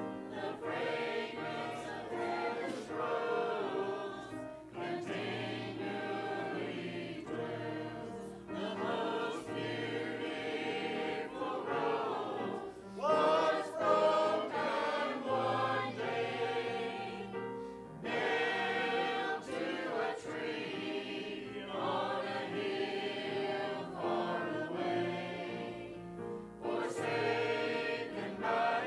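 Mixed church choir of men and women singing a hymn together, in phrases with short breaks between them.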